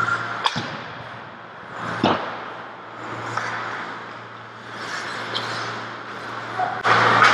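Ice hockey play heard from behind the goal: skate blades scraping the ice and sticks clacking, over a steady low hum in the rink. Near the end a louder steady rushing noise sets in.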